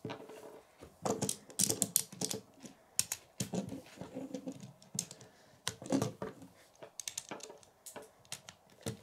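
Lego plastic parts clicking and rattling as rubber-tyred wheels are pushed onto the axles of a small Lego model, in an irregular run of sharp clicks.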